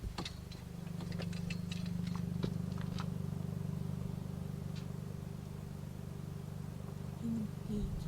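Car engine starting and then idling steadily with a low, even hum. A few light clicks come in the first few seconds.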